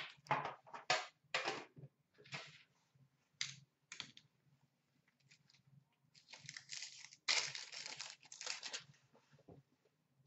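Foil hockey card packs being torn open and crinkled, with cards shuffled in the hands. Several short rustles come in the first few seconds, then a longer stretch of tearing and crinkling about six to nine seconds in.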